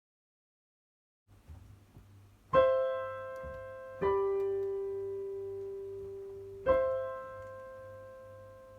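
Piano playing three single notes, each struck and left to ring out and fade: a higher note, a lower one about a second and a half later, then the higher note again about two and a half seconds after that. A faint low hum lies underneath.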